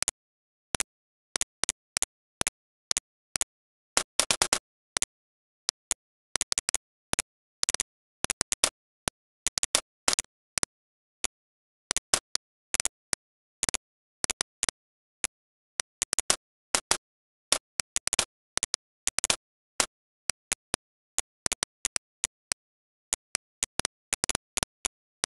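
Computer mouse clicking: short sharp clicks, single, in pairs and in quick runs, with dead silence between them.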